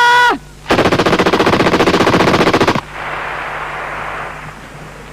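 GPMG (7.62 mm general purpose machine gun) firing one burst of about two seconds, roughly a dozen rounds a second. The shots are followed by echo rolling away for a second or two. The burst is long-range fire whose strike is being observed for correction.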